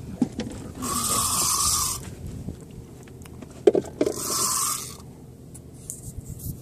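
Fishing rod and spinning reel being worked: two spells of whirring hiss as line runs through the reel, one about a second in and a shorter one around four seconds in, with a sharp click just before the second.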